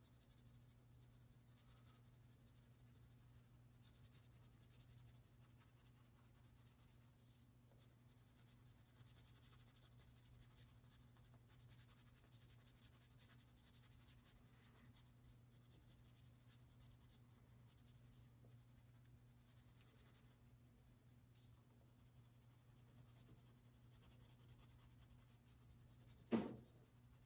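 Faint scratching of a crayon coloring on paper over a low, steady hum, with one short knock near the end.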